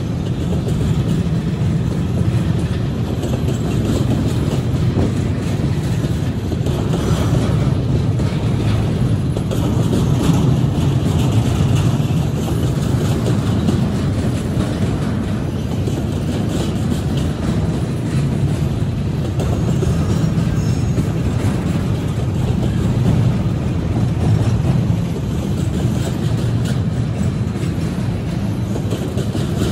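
Double-stack container train's well cars rolling past, a steady loud rumble of steel wheels on the rails with scattered clicks from the wheels.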